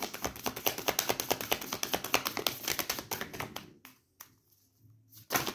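A deck of oracle cards being shuffled by hand: a fast, dense run of card clicks for about four seconds, then it stops, with a few separate clicks near the end.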